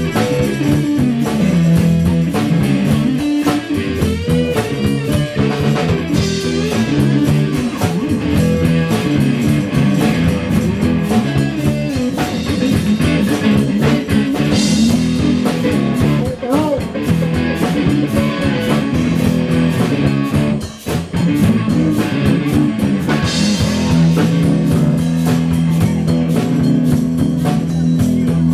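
Live band playing: electric guitar over bass and drum kit in a steady rock beat, with a brief drop in the music a little past two-thirds of the way through.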